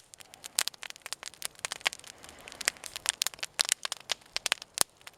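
Wood log fire crackling, with irregular sharp pops and snaps.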